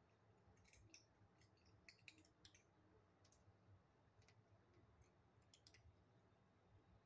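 Faint, irregular crunching clicks of kittens chewing dry kibble, bunched in quick clusters in the first few seconds and again near the end.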